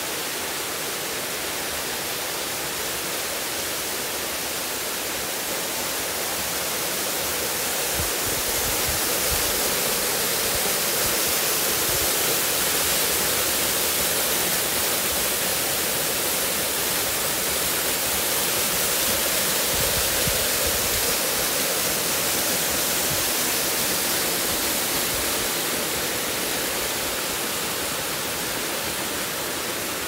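Waterfall rushing in a steady roar of falling water, swelling louder about a quarter of the way in and easing slightly near the end.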